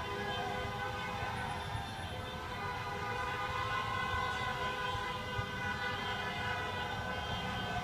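Many car horns held down at once, making a steady, continuous blare of overlapping pitches: celebratory honking after a championship win.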